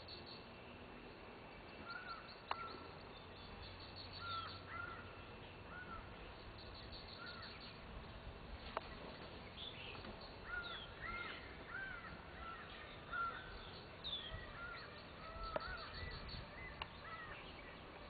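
A mix of wild birds calling: short, repeated arched chirps and high thin notes from several birds, growing busier in the second half, with a few sharp ticks.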